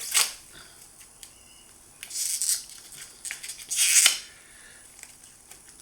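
Plastic shrink-wrap on a hardcover book crinkling in three short bursts as it is handled, one right at the start, one about two seconds in and one about four seconds in.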